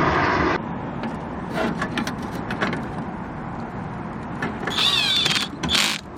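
A low-powered cordless drill running and stopping abruptly about half a second in, followed by light clicks and tool handling. A short high squeal comes near the end.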